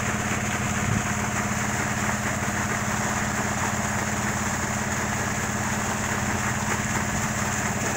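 Well pump's motor running steadily under load, with muddy water gushing out of the discharge pipe. The motor's sound comes from the pressure it is producing.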